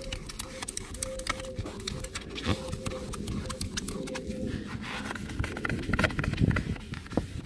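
Wet magic sponge (melamine foam) scrubbing a uPVC door panel by hand, in many quick, short rubbing strokes.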